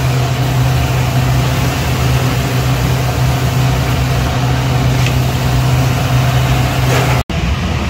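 A steady low mechanical hum with a faint hiss above it, with a couple of faint clicks; it cuts out for an instant near the end.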